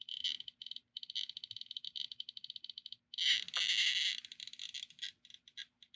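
Trifield TF2 EMF meter's audio crackling in RF mode while held against a cell phone. It chatters steadily at first, grows louder and denser for about a second halfway through, then breaks into separate short pulses, following the phone's pulsed radio signals to and from the cell tower.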